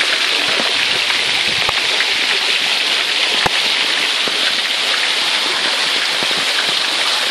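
Steady rush of water running through a stone-lined channel, with one brief click about halfway through.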